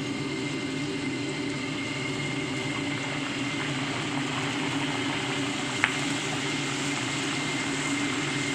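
Hot oil sizzling in a wok as green stalks and garlic fry, over a steady low hum from the stove. One sharp click about six seconds in.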